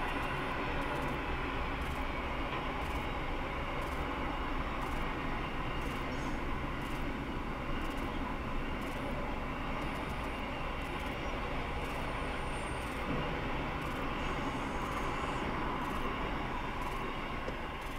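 Freight train rolling through a level crossing, a steady rumble of wheels on rail heard from inside a waiting car, with regular ticks about twice a second.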